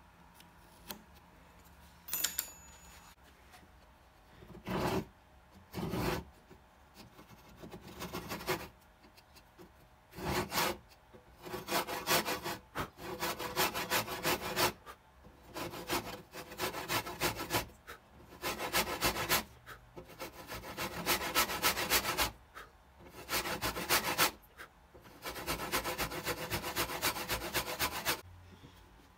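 Fine-toothed hand saw cutting into a rosewood saw handle held in a vise. A couple of single strokes start the cut, then steady back-and-forth strokes of about a second each follow from about ten seconds in, each a fine rasp of teeth in the wood, stopping near the end.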